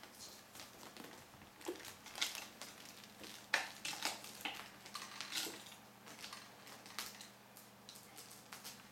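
Light, irregular clicks and taps of small kittens moving about on a wooden floor.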